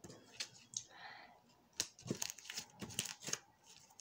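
Clear glitter slime being kneaded, stretched and pressed on a counter by hand, giving irregular wet clicks and crackles.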